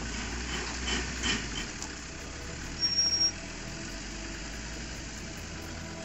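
Land Rover Discovery II engine running low and steady under load as the 4x4 crawls across a steep grassy slope, with a few light clicks in the first two seconds. About three seconds in, a short high-pitched tone is the loudest sound.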